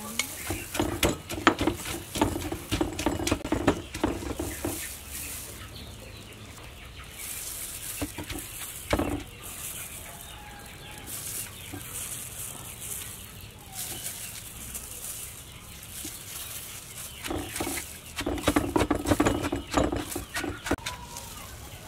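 Wooden pestle pounding in a large wooden mortar, a fast run of knocks while papaya salad ingredients are pounded and mixed. There are two spells of pounding, one at the start and one near the end, with a quieter stretch between them.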